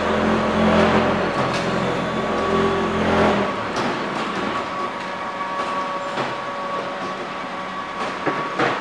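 Automatic hydraulic concrete block machine's pallet stacker at work: a motor hums steadily and cuts off about three and a half seconds in, then metal clanks and clicks a few times over a faint steady whine.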